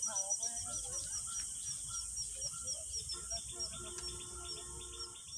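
Birds calling: a short high chirp repeated about three times a second among other warbling calls, over a steady high-pitched hiss and a low rumble.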